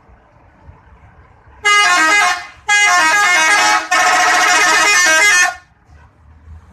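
GARIN Trans bus's telolet horn, a multi-tone musical air horn, playing a stepping tune in three loud blasts, the last two longer, starting about a second and a half in.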